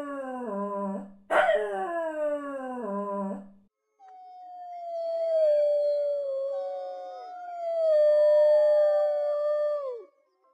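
Canine howling: two short howls that start high and fall steeply in pitch, then, after a short pause, a long held howl with a second howl overlapping it. Both trail off just before the end.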